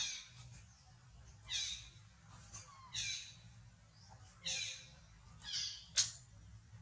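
Baby macaque crying in a series of short, high squeals that fall in pitch, about one every second and a half. A sharp click comes near the end.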